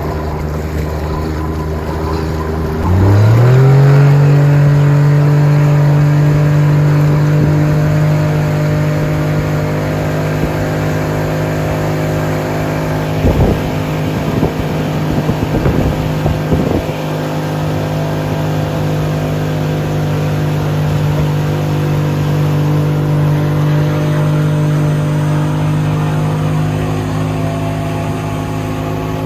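Bayliner motorboat's engine throttled up about three seconds in, its pitch rising quickly from a low running note and then holding steady at cruising speed. A short run of knocks comes near the middle.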